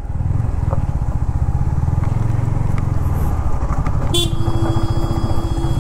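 Yamaha motorcycle engine running at low speed with a steady low throb; about four seconds in, a horn sounds and is held down.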